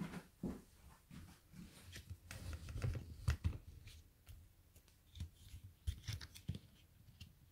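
Handling noise from a phone camera being picked up and repositioned: scattered rubbing, clicks and a few dull knocks, the loudest about three seconds in.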